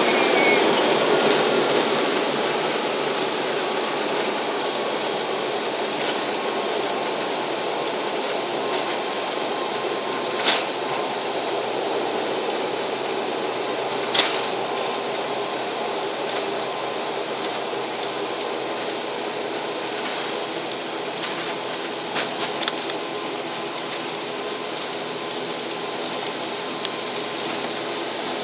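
Steady drone of an ATR turboprop airliner's engines and propellers heard from inside the cabin, with a few steady tones, during the landing phase. Two sharp knocks sound, about ten and fourteen seconds in.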